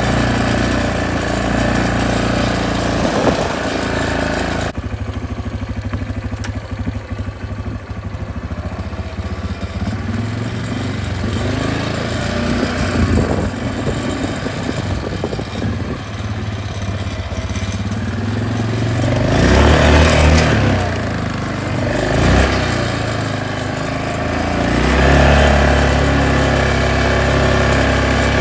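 Quad bike engine running while the bike is ridden, the revs rising three times: about twenty seconds in, briefly a couple of seconds later, and again near the end.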